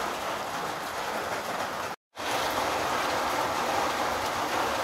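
Raw banana slices deep-frying in hot oil in a steel kadai over a wood fire, a steady sizzle that breaks off briefly about two seconds in.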